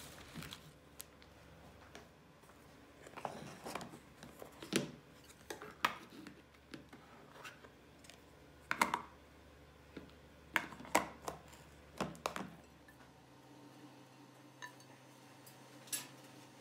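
Scattered light clicks, taps and knocks of food being plated by hand: a plastic food container and ceramic plates knocking on a wooden table. The knocks come in irregular small clusters, with the busiest stretches early, around the middle and toward the end.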